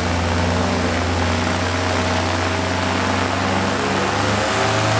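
Vittorazi two-stroke paramotor engine and propeller running steadily during its break-in run, with a brief change in pitch about four and a half seconds in.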